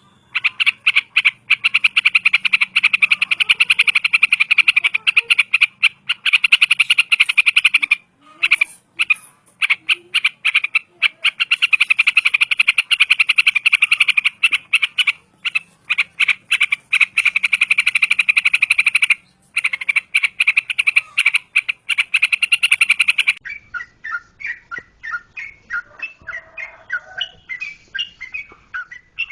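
A fast, rasping pulsed trill runs on and on, with short breaks about 8 and 19 seconds in. About 23 seconds in it gives way to a yellow-vented bulbul's quick, varied chirping song phrases.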